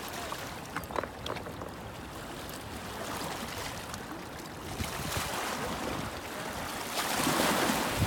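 River water lapping and splashing against shoreline rocks, with a louder wash of water near the end.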